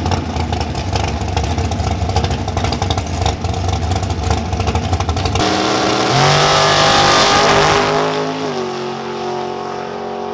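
A dragster's engine runs rough and choppy at the starting line. About five seconds in it launches at full throttle, its note climbing in steps as it pulls away, then drops and fades as the car goes down the track.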